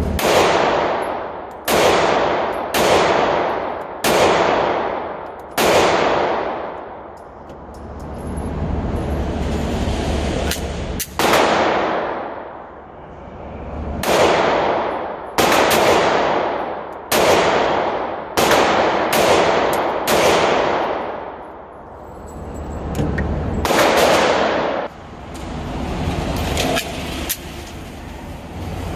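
Sig Sauer P365 pistol firing about a dozen single shots at uneven intervals in groups, with pauses of several seconds between them. Each sharp crack is followed by a long echo off the concrete-block walls of an indoor range.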